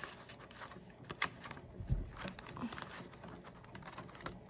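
Light rustling and small clicks of paper bills and plastic binder sleeves being handled while cash is tucked into a cash envelope, with a soft low thump about two seconds in.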